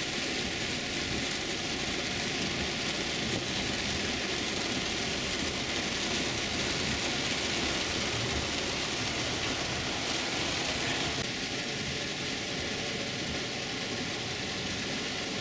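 Heavy rain falling on a car's roof and windows, heard from inside the cabin as a steady, even hiss.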